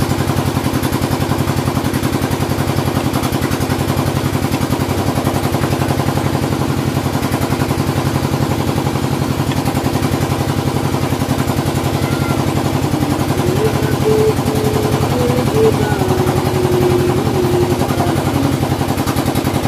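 Motorcycle engine idling steadily with a rapid, even firing beat.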